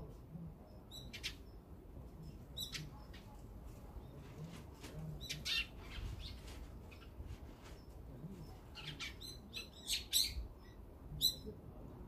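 Small birds chirping at a feeder in short, scattered calls, with a cluster of louder calls near the end.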